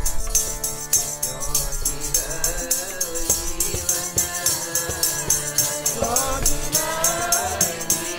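Sikh keertan: a harmonium with group voices singing a shabad over a steady jingling percussion beat of about four strokes a second.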